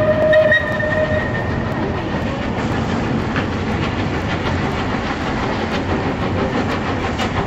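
Southern Railway Battle of Britain class steam locomotive 34067 and its carriages running across a viaduct: steady train noise with wheels clicking over rail joints. A held whistle note ends about a second in.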